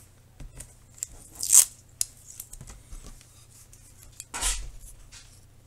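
Adhesive tape torn off a roll: two short rips about three seconds apart, among small rustles and taps of paper and tape being handled.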